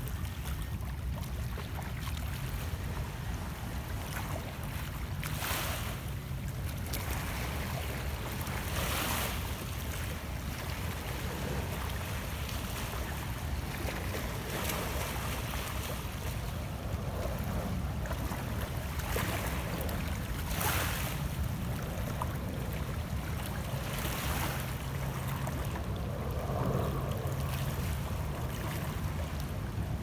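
Small lake waves lapping and splashing against shoreline rocks, with a soft wash every few seconds, over a steady low wind rumble on the microphone.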